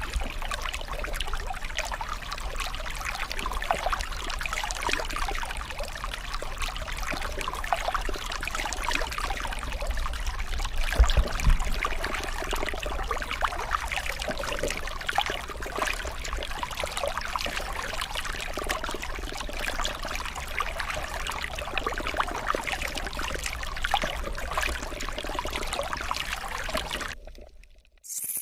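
Running water trickling and splashing steadily, with a low rumble beneath; it fades out shortly before the end.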